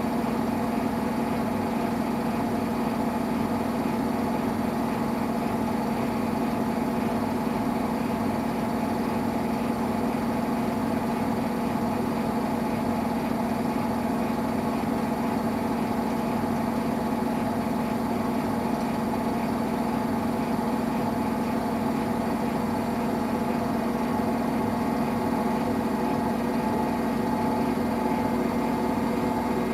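Samsung Eco Bubble washing machine running a cotton wash: a steady motor hum with a constant low tone.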